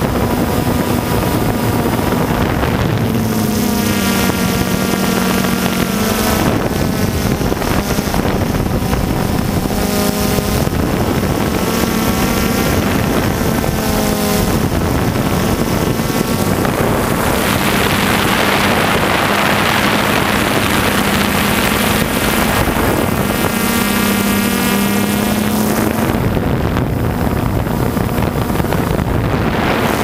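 DJI Phantom 2 quadcopter's motors and propellers buzzing steadily, close to the camera on board, their pitch wavering up and down as the drone manoeuvres. Wind rushes over the microphone for a few seconds around the middle.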